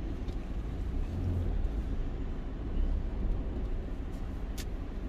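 Van moving slowly, heard from inside the cab: a steady low engine and road rumble, with one sharp click about four and a half seconds in.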